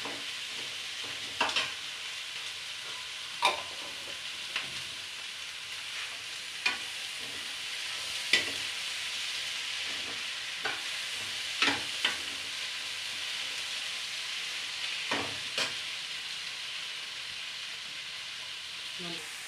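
Onion-tomato masala sizzling steadily in a stainless steel kadhai while it is stirred, with a metal spoon clinking and scraping against the pan about ten times.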